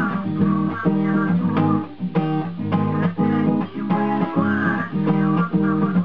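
Acoustic guitar strumming chords in a steady rhythm, each stroke ringing on into the next.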